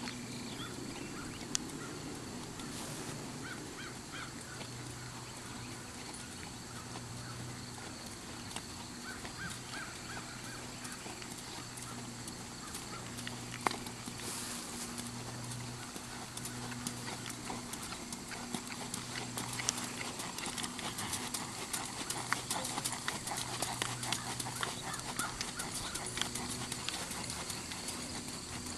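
Quarter Horse gelding's hooves on a dirt arena under a rider, with short hoof clicks that grow busier in the second half. A low hum comes and goes behind them.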